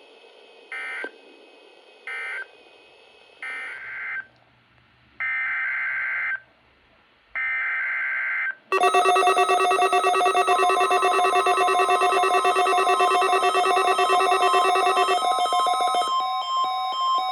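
Emergency Alert System (SAME) digital data bursts from a NOAA Weather Radio broadcast: a string of short buzzy bursts, then longer ones. About nine seconds in, a loud, steady alert tone with many overtones begins and holds, shifting slightly near the end, to sound the start of a weekly test.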